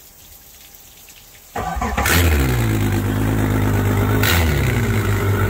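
Twin Yamaha 4.2-litre V6 four-stroke outboards starting up, lower units sitting in a water-filled flush tub: an engine cranks and catches about a second and a half in and runs on steadily, with a second sharp burst and a shift in the engine note a couple of seconds later.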